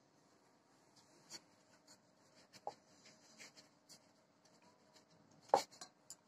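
Hands rolling rice-flour dough on a wooden board: faint rubbing with scattered light taps, and one sharper knock about five and a half seconds in.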